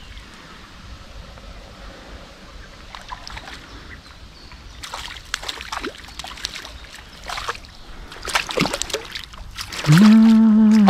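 River water running with irregular splashes and sloshes. Near the end a man's voice holds a loud drawn-out note that falls in pitch.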